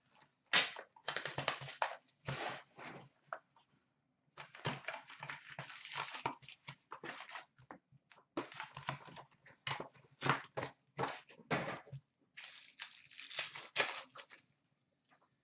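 A cardboard trading-card box is cut open and foil card packs are handled and torn open, giving irregular crinkling, rustling and tearing with short pauses.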